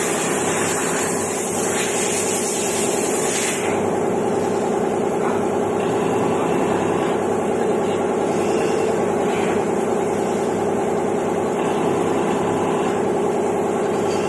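CNC milling machine running steadily, its spindle and cutting giving a constant mechanical tone. A high hiss runs over it for the first three and a half seconds, then stops.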